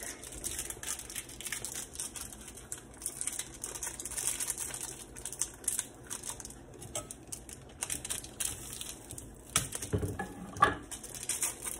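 A chocolate bar's wrapper crinkling and tearing as it is unwrapped, in a run of small crackles. A few sharp knocks come near the end, the loudest about ten seconds in.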